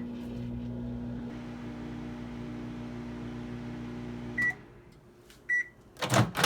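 Microwave oven running with a steady hum while heating a cup of water, dish soap and lemon juice. The hum stops about four and a half seconds in with a short beep, another short beep follows, and a loud knock comes near the end.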